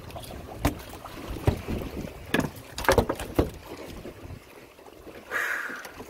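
Several sharp knocks and thumps as a landing net and a freshly caught black sea bream are set down and shift on a boat's deck, with a short rush of noise near the end.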